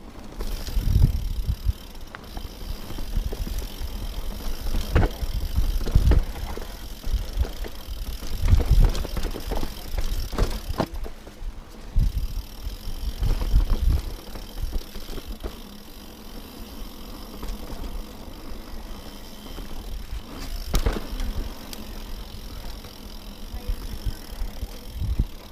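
Yeti mountain bike rolling fast over a rocky red-dirt singletrack: tyres on dirt and loose stones, with the bike rattling and thudding over bumps, several hard knocks along the way.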